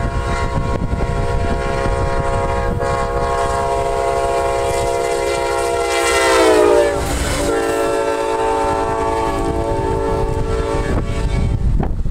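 Amtrak P40DC diesel locomotive's horn sounding one long blast over the rumble of the approaching train. The horn's chord drops in pitch as the locomotive passes, about six to seven seconds in, where it is loudest. It stops about a second before the end, leaving the clatter of the passenger cars' wheels on the rails.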